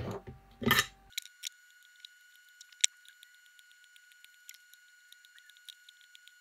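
Two louder knocks in the first second, then faint scattered ticks and light clicks as an IC socket's pins are soldered to a circuit board with a soldering iron and solder wire, with one sharper click about three seconds in. A faint steady high tone runs underneath.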